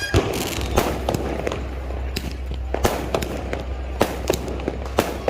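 Fireworks going off: a run of sharp bangs and cracks at irregular intervals, about two a second, some louder than others, over a steady low rumble.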